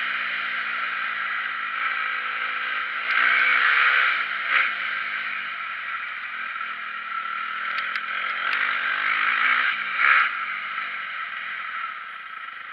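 Motocross dirt bike engine being ridden hard, revving up and down as the rider works the throttle. The revs climb about three seconds in and again near ten seconds, over a steady rush of noise, with a few sharp clicks about eight seconds in.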